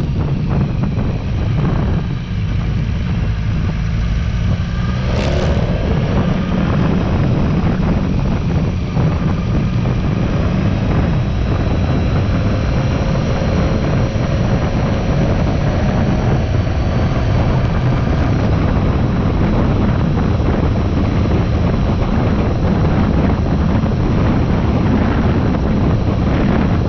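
Motorcycle engine running at road speed, with wind rushing over the camera and a deep steady drone. The engine note falls back about two seconds in and picks up with a rising pitch a little after five seconds. Later it climbs slowly again as the bike accelerates.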